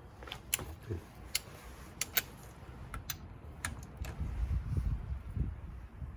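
Irregular sharp metallic clicks from a torque wrench and socket being worked on a car's wheel nuts, about a dozen over the first four seconds, followed by a low rumble.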